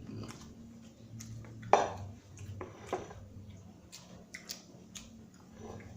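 Mealtime eating sounds: chewing, with short clicks of tableware against a plate, the sharpest just under two seconds in and another about a second later.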